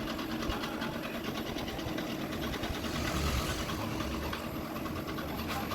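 Forbes robot vacuum cleaner running its motors, a steady whir with a fast, even rattle.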